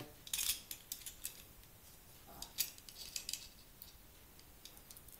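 Faint metallic clicks and scrapes of calipers being slid open and closed on the steel tip of a slingshot fishing dart to measure its diameter: a handful of short ticks in the first three and a half seconds.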